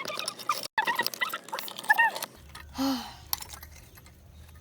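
Stones and crystal pieces clinking and scraping as they are worked loose from a rock cavity, busiest in the first two seconds, then a brief low grunt-like sound near three seconds before it falls quiet.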